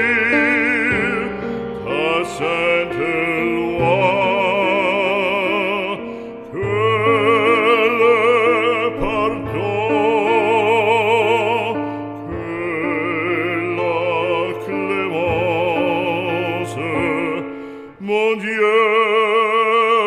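Background music: an operatic voice singing long, wavering notes with strong vibrato over steady classical instrumental accompaniment.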